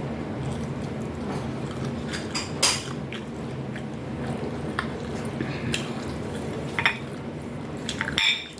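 Spoons and forks clinking against plates a few times during a meal, over a steady low hum that cuts off suddenly near the end.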